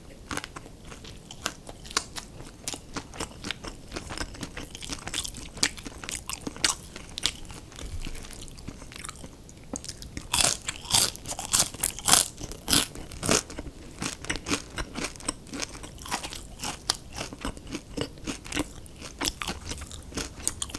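Close-miked chewing and crunching of crispy fried fast food, a steady run of crackling bites with the loudest, densest crunches about halfway through.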